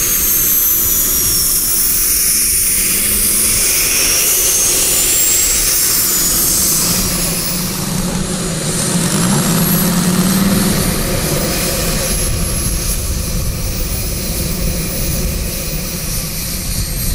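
Model jet turbine of a large radio-control L-39 running at taxi power, its high whine wavering up and down in pitch, mixed with the propeller engine of a radio-control F4U Corsair taxiing. The Corsair's engine grows louder about eight to eleven seconds in.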